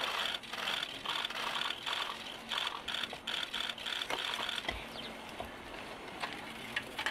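Irregular rattling and scraping of crash debris being handled, dense for the first four seconds or so and then thinning to scattered clicks and knocks.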